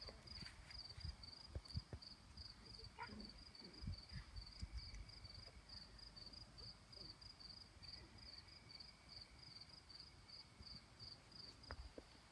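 Faint, steady chirping of a cricket: short high chirps repeating evenly at about four a second, with scattered low thumps.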